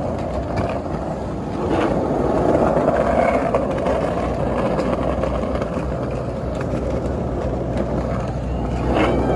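Steady rolling rumble of roller-skate wheels on street pavement, with a low steady hum of car engines underneath.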